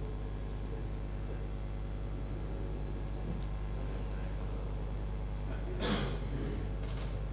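Steady low hum of a large hall's room tone picked up through the public-address microphones, with one brief sharp noise about six seconds in.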